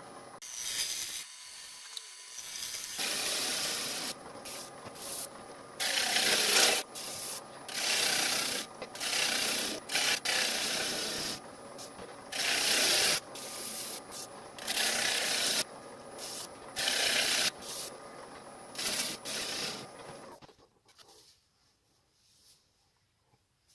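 Bowl gouge cutting the inside of a spinning fruitwood bowl on a wood lathe. It makes about a dozen short scraping-hiss passes of roughly a second each over the lathe's steady running hum. The cuts go in toward the centre of the bowl with the tool rest set a little high. Near the end the lathe switches off and the sound stops.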